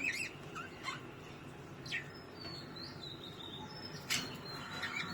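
Birds chirping: short, sharp chirps come about once a second, with thin, high whistled notes between them.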